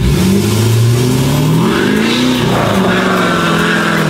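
Lifted pickup truck's engine accelerating as the truck pulls away. Its pitch climbs for about two seconds, drops about two and a half seconds in, then rises again and holds steady.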